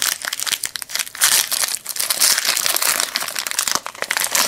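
Plastic wrapper of a Donruss baseball trading card pack being torn open and crinkled in the hands: continuous dense crackling, with one last loud crinkle at the end.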